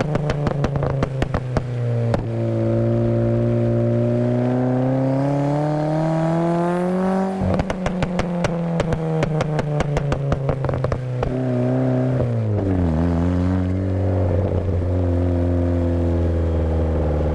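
Turbocharged Mk1 1.6 Mazda MX-5 four-cylinder engine crackling and popping through the exhaust on the overrun, a 'pops & bangs' map, as the revs fall. Between two runs of crackles the revs climb steadily for about five seconds. Near the end it settles to a steady, lower engine note.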